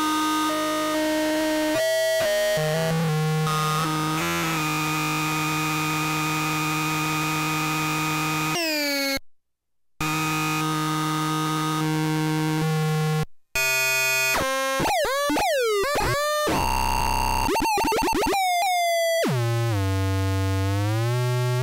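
Hand-built analog noise machine droning in harsh, buzzy electronic tones that jump between pitches. It cuts out for under a second about nine seconds in, then sweeps up and down in repeated swooping glides through the second half.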